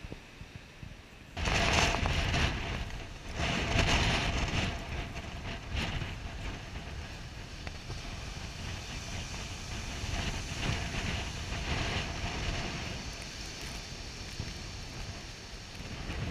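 Heavy storm waves breaking and surf rumbling, with wind buffeting the microphone. It starts suddenly about a second and a half in, with loud surges of breaking water over the next few seconds, then goes on as a steady rumble.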